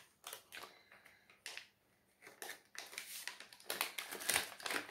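Small hard plastic clicks and clacks of lipstick-style diamond-painting drill pens knocking together as they are handled, a few separate clicks at first, then a denser run of clicking and rustling in the last couple of seconds.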